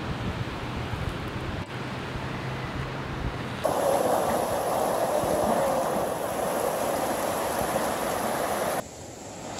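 A steady rushing noise with a faint low hum, then, about four seconds in, a small rocky creek running, louder and steady.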